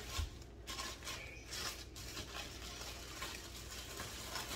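Plastic bag rustling and crinkling in irregular bursts as hands handle the meat inside it, with a soft low knock shortly after the start.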